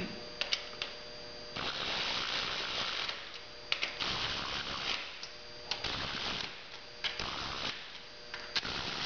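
Power ratchet running the camshaft bearing-cap nuts down onto their studs in several short runs, with sharp clicks between the runs.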